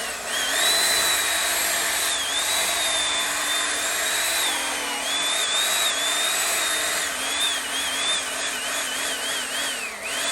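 Corded electric chainsaw cutting into a tree trunk, its high motor whine dipping and recovering as the chain bites into the wood, with quicker repeated dips near the end.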